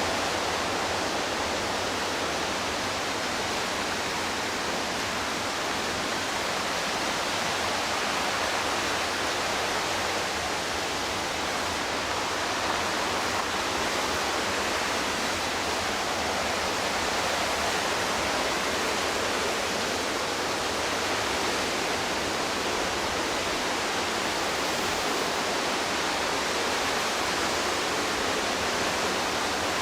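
Rushing water of the McKenzie River, a steady, unbroken whitewater rush.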